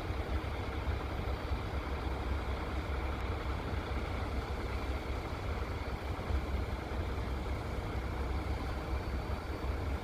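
Heavy engine running steadily at idle, a low rumble with no change in speed.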